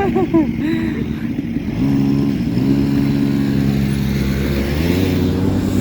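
A motor vehicle's engine running and revving, its pitch stepping up about two seconds in and again near the end.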